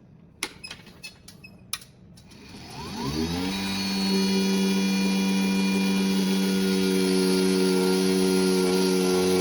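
A handful of sharp clicks, then the small DC motor of a mini bench table saw spins up with a rising whine and settles into running at a steady speed.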